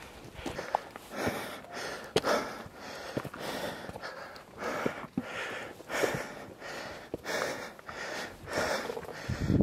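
A hiker's heavy breathing, in and out about once a second, from the effort of climbing a steep trail, with a few sharp footstep clicks on rock.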